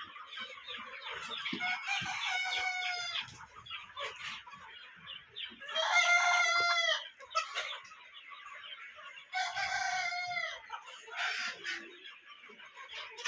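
A flock of Sonali chickens clucking continually. Roosters crow three times, each crow lasting about a second, a few seconds apart.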